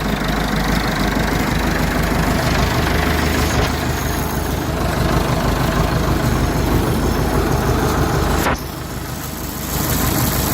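Massey Ferguson 275's Perkins four-cylinder diesel engine idling steadily. About eight and a half seconds in it briefly sounds quieter for around a second, then comes back.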